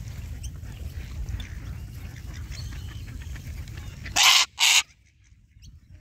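A goose gives two loud, harsh honks in quick succession about four seconds in, over a steady low rumble and faint bird calls. The background cuts out abruptly after the honks.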